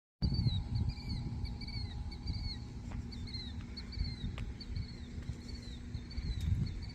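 Birds chirping in short, repeated falling notes, several a second, over a low rumble.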